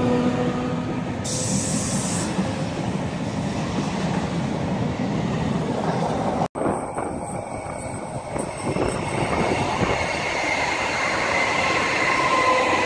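Red Rhaetian Railway electric trains running past on metre-gauge track: a steady rumble of wheels on rail with a faint tonal whine. The sound cuts off abruptly about halfway through and switches to another passing train, whose high whine slowly shifts in pitch toward the end.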